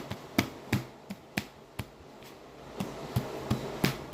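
A series of sharp, irregular clicks and taps, a few a second, thinning out in the middle and picking up again near the end.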